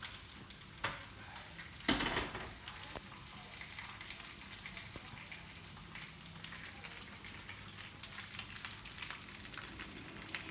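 Potato pizza bases frying in pans, a steady sizzle. Two sharp knocks of cookware come about one and two seconds in, the second louder, as the pans are handled.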